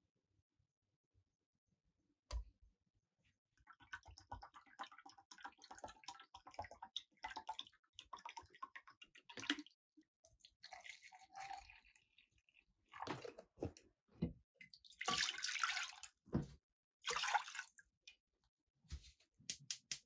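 Mirin and sake poured from bottles into a plastic measuring jug and a pan, gurgling and splashing in several separate pours, the loudest in the second half. A quick run of clicks comes near the end.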